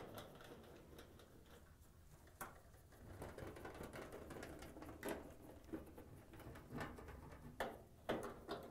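Faint clicks and light metallic taps of quarter-inch screws being driven by hand with a nut driver into a washer's sheet-metal rear access panel, a few sharp clicks a couple of seconds apart with soft scraping between them.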